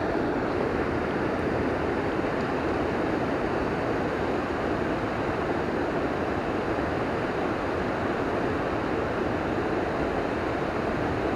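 Steady rushing of river water spilling over a small waterfall and rocky cascade, an even, unchanging wash of noise.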